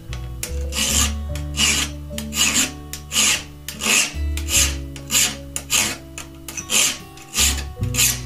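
Flat file rasping across the edge of a plate of old panel-saw steel clamped in a vise, in steady back-and-forth strokes about one and a half a second, cutting the notch of a scratch stock inlay cutter. Background music plays under it.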